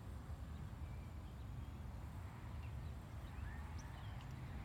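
Outdoor ambience: a steady low rumble of wind on the microphone, with a few faint, short bird chirps.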